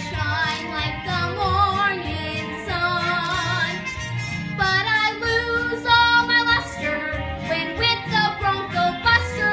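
A young female singer performing a Broadway show tune with musical accompaniment, holding long notes with vibrato over a steady bass beat.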